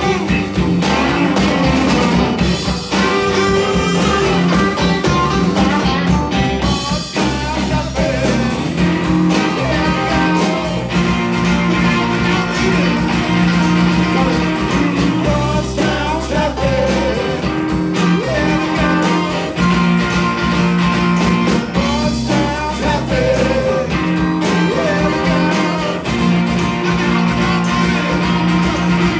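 Live blues-rock band playing: guitars over a steady beat and bass line, with a voice singing.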